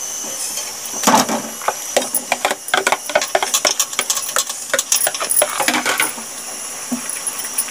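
Metal spoon clinking and scraping against a cooking pot in quick, irregular strokes as marinated chicken is stirred into hot oil and onion paste, over a steady hiss of frying. The clinking stops about six seconds in.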